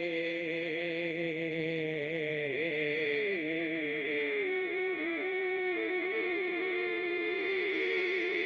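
Background music of long held, droning tones whose pitch wavers and shifts slowly.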